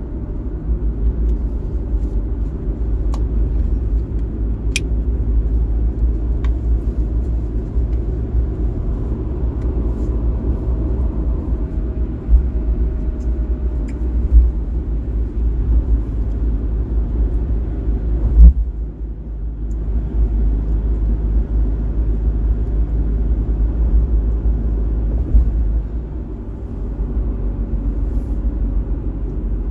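Steady low rumble of a car's road and engine noise while driving in traffic, with a few short thumps; the loudest comes about eighteen seconds in.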